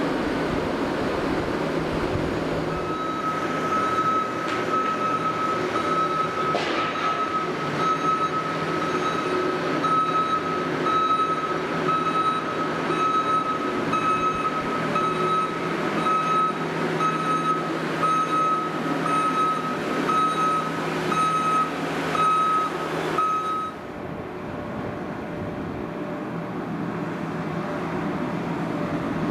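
New Holland skid-steer loader's diesel engine running under load, with its reversing alarm beeping about once a second for some twenty seconds as the machine backs up. The beeping stops near the end, leaving the engine running.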